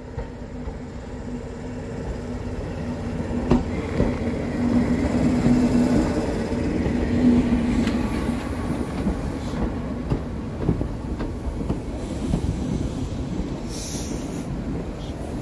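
British Rail Class 43 HST diesel power cars running past, a steady engine hum with the wheels clacking over rail joints. It grows louder to a peak about five to eight seconds in, then eases off.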